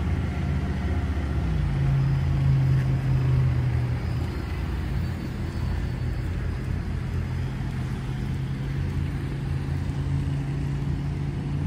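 Toyota Prius pulling away while towing a boat on its trailer: a steady engine hum that steps up in pitch about a second and a half in and then holds.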